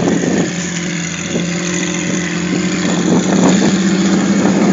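Off-road Jeep's six-cylinder engine running with a deep, steady note, growing a little louder about three seconds in.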